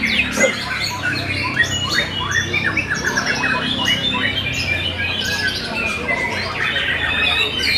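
Many white-rumped shamas (murai batu) singing at once in a contest hall: a dense, unbroken mix of quick whistled sweeps, chirps and harsh rasping calls. A steady low hum sits underneath.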